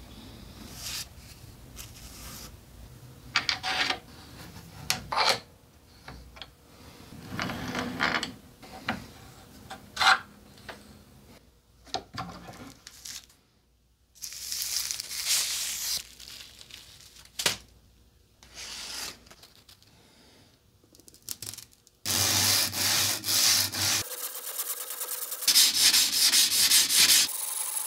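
Close rubbing and scraping from handling a tape-wrapped carbon-steel sashimi knife, in scattered short bursts. Longer, louder rasping passages come near the end.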